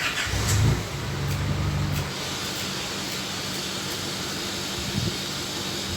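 A low rumble for about the first two seconds, then a steady rushing hiss.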